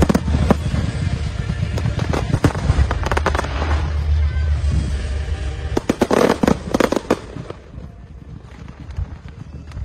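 Fireworks display: a rapid run of bangs from aerial shells and ground effects over a low rumble, with a dense patch of crackling about six seconds in, then quieter near the end.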